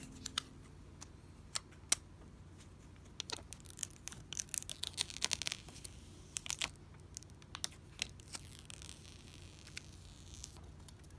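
Close-up handling sounds of a new iPhone SE (2020) being unboxed. There are scattered clicks and taps as it comes out of its box, a run of crackling plastic film in the middle, then the clear protective film being peeled off the screen as a drawn-out smooth peeling hiss near the end.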